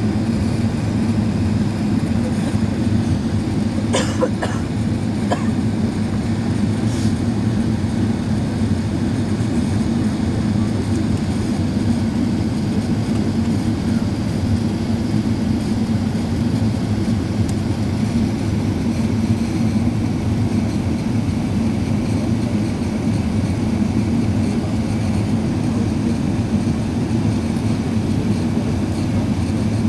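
Steady low drone inside the passenger cabin of an Airbus A380 in flight: engine and airflow noise at an even level. A few faint clicks come about four to seven seconds in.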